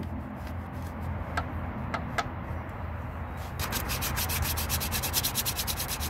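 The water pump mating surface on the engine block is being sanded by hand to clean off the old gasket residue. It is a scratchy rubbing that turns into quick, even back-and-forth strokes a little over halfway through.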